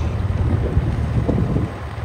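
Heavy diesel engine running steadily with a deep low rumble, with wind noise on the microphone. The level eases slightly near the end.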